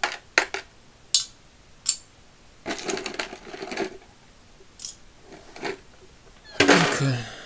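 Small steel parts such as screws and washers clinking as they are dropped into and settle in a thin stainless-steel magnetic parts tray. There are sharp clicks throughout, a stretch of rattling about three seconds in, and a louder, longer clatter near the end.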